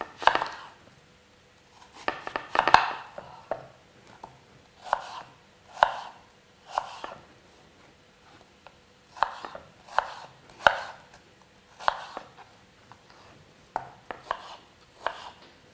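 Kitchen knife slicing a peeled apple into thin wedges on a wooden cutting board: a dozen or so separate short cuts, each ending in a knock of the blade on the board, with a pause a little before the middle.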